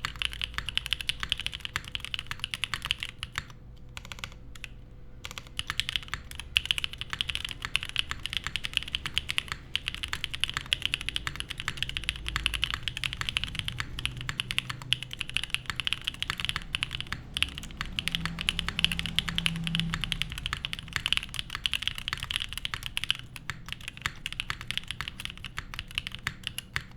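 Mechanical keyboard typing on a gasket-mounted Geonworks F1-88 with lubed Gateron Cream Soda linear switches, an FR4 plate and GMK keycaps: keys struck in fast, continuous runs, with a brief break about four seconds in.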